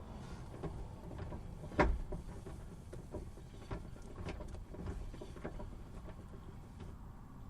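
Clunking from a 2005 Subaru Impreza RS's 4.11 rear differential: one sharp, loud clunk about two seconds in, then several fainter knocks over a low, steady rumble.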